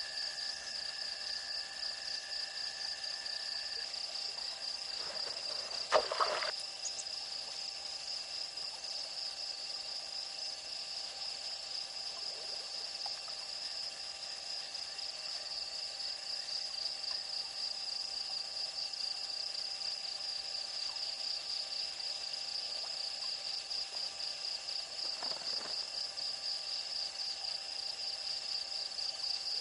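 Night insect chorus: crickets trilling steadily at a high pitch, with a second, lower steady insect tone that stops about four seconds in. A single sudden knock about six seconds in is the loudest sound.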